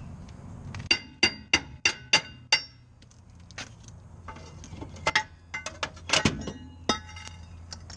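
A hammer striking an old rear brake rotor to knock it off the hub: a quick run of ringing metal blows about three a second, then a slower, uneven series of strikes.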